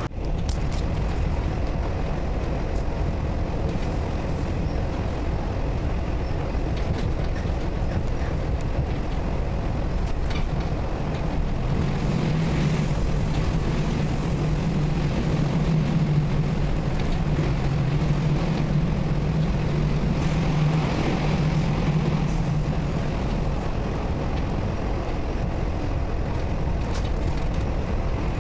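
Passenger train running along the track, heard from inside the carriage: a steady rumble of wheels and running noise, with a low hum coming in for about ten seconds in the middle.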